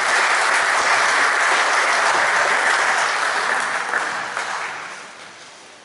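Audience applauding: a steady patter of clapping that dies away from about four seconds in.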